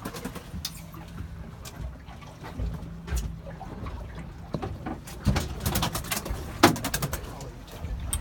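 Water splashing and sloshing against a motorboat's hull as it runs through choppy sea, with a low steady engine hum over the first few seconds and scattered sharp slaps and knocks, the loudest about five and six and a half seconds in.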